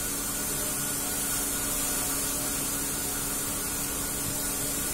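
Gas stove burner flame hissing steadily, with a faint steady low hum underneath.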